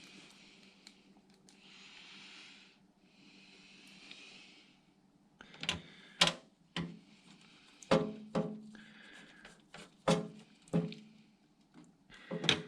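Soft rustling for the first few seconds, then a run of sharp clicks and knocks from PC hardware being handled and fitted, some ringing briefly.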